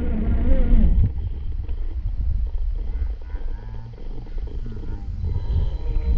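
Scale RC rock crawler's electric motor and gears whining, the pitch rising and falling with the throttle in the first second and again near the end, quieter in between. Wind rumbles on the microphone throughout.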